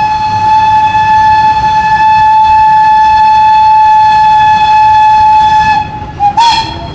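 Train whistle blowing one long, steady, loud note that cuts off about six seconds in, followed by a brief short toot.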